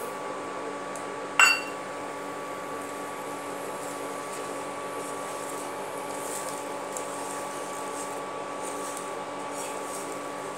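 Steady electrical hum and whine of an induction cooktop running under a nonstick pan, with a brief sharp clink about one and a half seconds in as sugar is poured from a bowl into the pan. Faint scraping of a spatula stirring the semolina halwa comes later.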